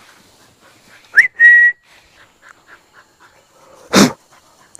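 A person whistles to call the dogs: one short whistle that slides up and is then held briefly on a steady pitch. Near the end a dog barks once.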